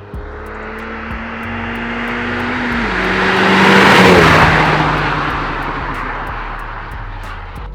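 Renault Mégane 225's 2.0 turbo four-cylinder, breathing through a Bastuck catback exhaust, driven hard past at speed. The exhaust and road noise build to a peak about four seconds in and then fade. The engine note drops in pitch shortly before the loudest point.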